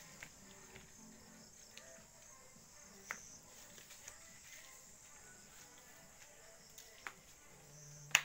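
Steady high-pitched chorus of insects. A few faint clicks sound over it, with a sharper knock at the very end.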